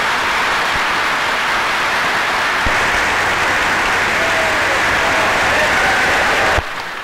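A large audience applauding, a dense steady clapping, heard on a 1941 newsreel soundtrack; it cuts off suddenly near the end.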